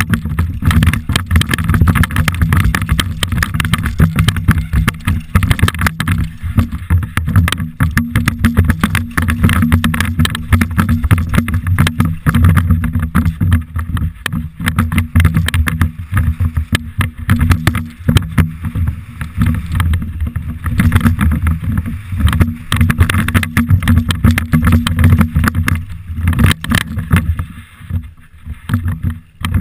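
Downhill mountain bike ridden fast over a rocky gravel trail: a constant low rumble with rapid rattling and knocking of the tyres and bike over stones, plus wind buffeting the camera's microphone. It eases off for a couple of seconds near the end.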